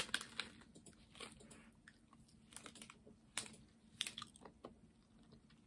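A person chewing small Millions chewy candies, with faint, irregular wet mouth clicks and smacks.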